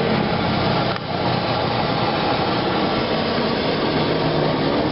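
Steady, loud rushing noise with a low hum underneath, like street traffic or a stall burner running.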